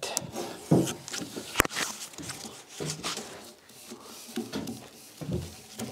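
Footsteps on a wooden plank floor, a few soft thuds about a second apart, with rustling and a single sharp click about one and a half seconds in.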